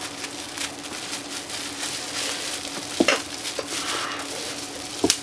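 Plastic bubble wrap rustling and crinkling as it is peeled off by hand, with two sharper, louder crackles, one about three seconds in and one near the end.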